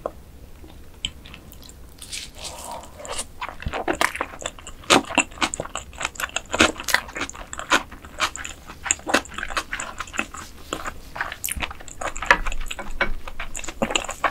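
Close-miked eating of mantis shrimp: biting and chewing, with quick crunching clicks that come thick and fast from about two seconds in.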